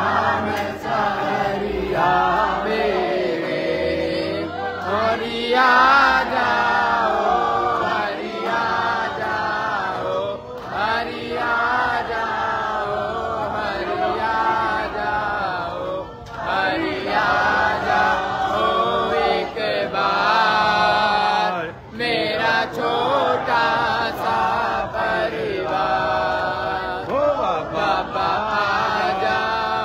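A group of voices singing a Hindu devotional chant in long phrases with brief pauses between them.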